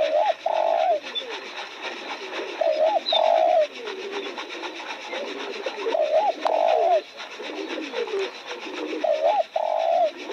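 Spotted dove cooing: four phrases about three seconds apart, each a short rising note followed by a longer held coo, with fainter, lower calls in between.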